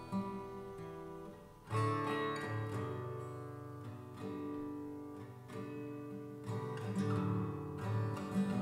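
Background music: an acoustic guitar playing plucked and strummed chords, with a louder chord struck a little under two seconds in.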